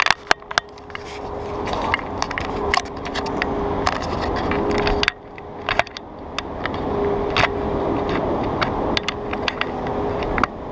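Wind rushing over the microphone of a camera mounted on a moving bicycle, swelling and falling, with rattles and sharp knocks as the bike rolls over rough, patched asphalt. The rush drops off suddenly about five seconds in, then builds again.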